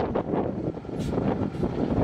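Cummins NT 14-litre inline-six diesel of a 1987 Kenworth T600A dump truck running, with wind buffeting the microphone.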